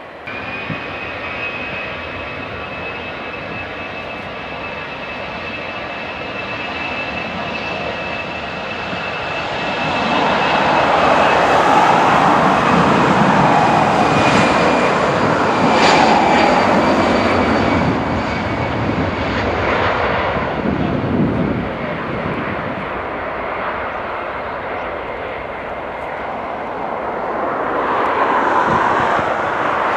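Airbus A320 jet engines at takeoff power. A steady high whine is heard first, then a louder roar builds about ten seconds in as the airliner runs down the runway toward lift-off.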